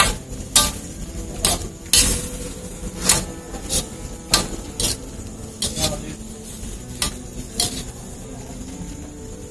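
Metal spatula scraping and clanking against a steel wok during stir-frying, with irregular sharp clanks about one or two a second over a light sizzle of oil.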